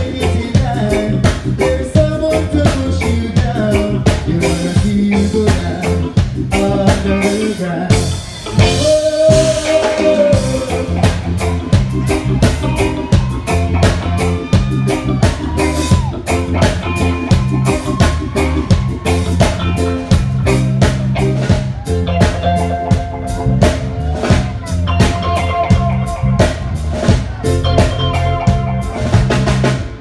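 Live band playing an instrumental passage with electric guitar, bass guitar, drum kit and keyboards over a steady beat.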